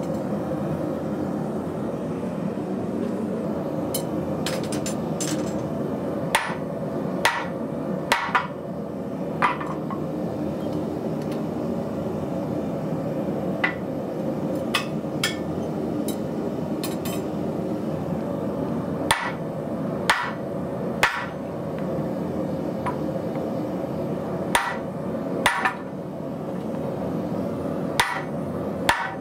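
Hammer blows on a red-hot piece of heavy-wall steel tubing set in a swage block. The strikes come singly or in small groups, a second or more apart with pauses between, some with a short metallic ring, over a steady background hum.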